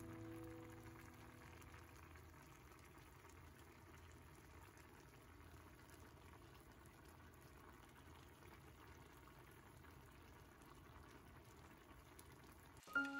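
Faint bubbling of water at a rolling boil in a stainless steel saucepan of potato chunks and eggs. Background music fades out in the first couple of seconds.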